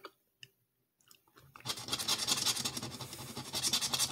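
A flat metal tool scraping the latex coating off a scratch-off lottery ticket in quick, rapid strokes, starting about a second and a half in after a couple of faint clicks.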